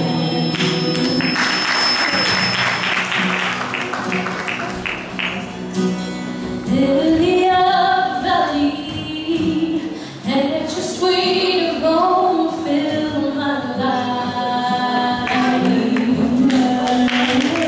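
Live song: a woman and a man singing to a strummed acoustic guitar, the strumming most prominent early on and the sung melody louder from about six seconds in.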